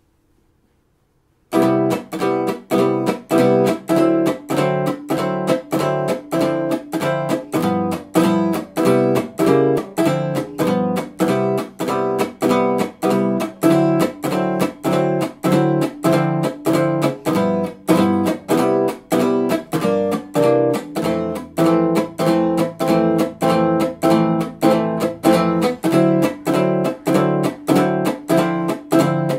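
Ibanez GB100 hollow-body archtop guitar, amplified through a Yamaha F50, strummed in a steady swing rhythm of chords at about two strokes a second, starting about a second and a half in. The comping imitates a drummer's ride-cymbal and hi-hat pattern.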